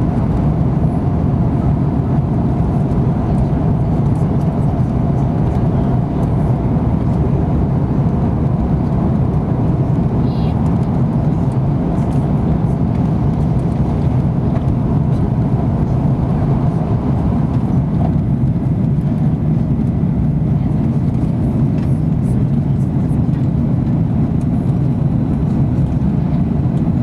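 Steady low rumble of an Airbus A330-200 airliner heard from inside the cabin, with engine and air noise at an even level throughout.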